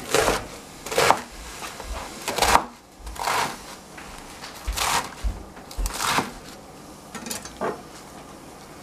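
Chef's knife chopping napa cabbage on a plastic cutting board: about seven separate strokes at uneven intervals.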